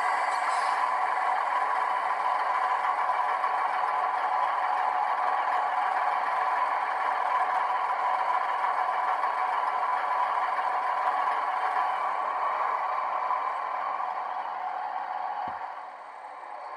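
Digital sound from the ESU sound decoders in Piko model DB class 612 diesel railcars, playing a steady diesel engine sound through the models' small speakers, with no deep bass. It drops away sharply about 15 seconds in.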